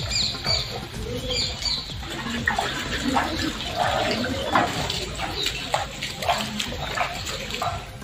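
A few high bird chirps near the start, then water splashing and sloshing in short strokes about twice a second, over a steady low rumble.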